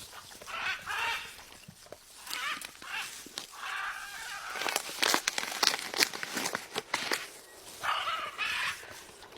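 Macaw parrot giving a series of harsh, raspy squawks, about five calls with short gaps, mixed with sharp clicks near the middle.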